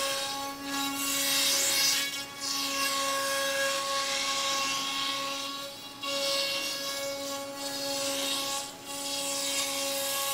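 HSD spindle on a CNC router whining steadily as its bit cuts a groove through pre-finished maple plywood, with a rushing cutting noise over the whine. The sound dips briefly three or four times.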